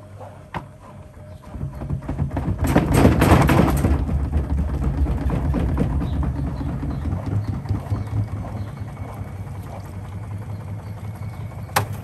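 Samsung front-loading washing machine: the door clicks shut, then the drum spins up with a low motor rumble and a loud burst of rattling and banging about three seconds in. The rumble settles into a steady hum that slowly dies away, and a sharp click from the door comes near the end.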